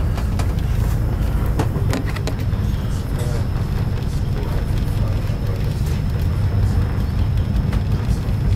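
Steady low rumble of a moving train heard from inside the carriage, with a few faint clicks and knocks about two seconds in.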